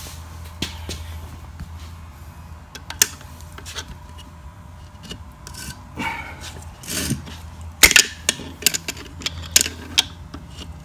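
Sharp metal clicks, knocks and scraping of a wrench gripping and straining at the crankshaft of a cut-open scroll compressor, coming thicker in the second half. The shaft will not turn: the compressor is seized, which the owner puts down to copper plating on the bearings.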